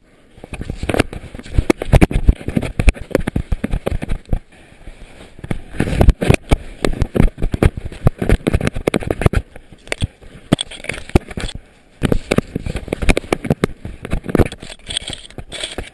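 Rapid, irregular knocking and rattling of a GoPro bouncing on a dog's collar as the dog moves, in loud clusters with brief lulls about four seconds in and again near twelve seconds.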